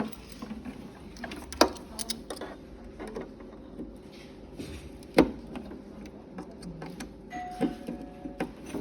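A low steady background hum with scattered sharp clicks and knocks, the two loudest about a second and a half in and about five seconds in.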